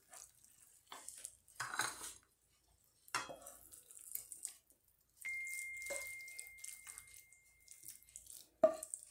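Wooden spoon scraping a moist tuna and pepper filling out of a frying pan onto a ceramic plate: light scrapes and knocks, with a ringing clink of pan or spoon on the plate near the end. A thin steady high tone runs for about three seconds in the middle.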